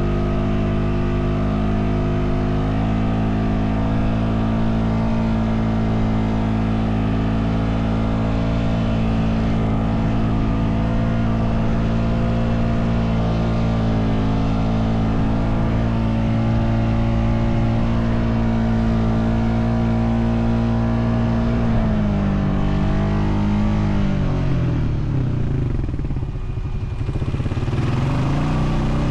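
Honda Foreman 520 ATV's single-cylinder engine running steadily under load while towing another ATV. About 22 seconds in the revs drop away, then climb again near the end.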